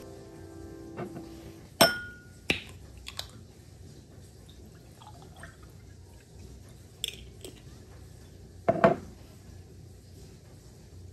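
Dishes and kitchenware clinking and knocking. There is a sharp clink with a short ring about two seconds in, a few lighter knocks after it, and the loudest knock about nine seconds in.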